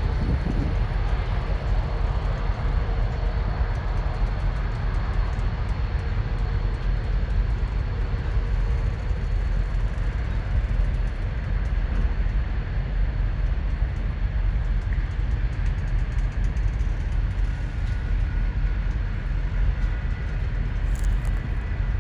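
A maintenance-of-way work train on the rails, giving a steady low rumble and rolling noise with no distinct horn or bangs.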